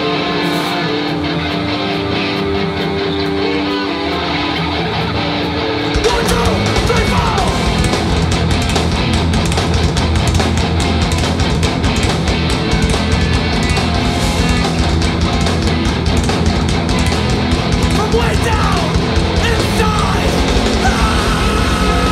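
Live hardcore punk band playing loud, distorted music. Electric guitar rings out alone with held notes, then about six seconds in the drums and bass crash in and the full band plays fast.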